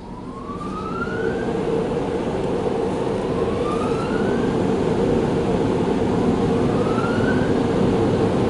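Automatic car wash dryer blowers starting up: a rushing blast of air that builds over the first few seconds and then holds steady, with three rising whines.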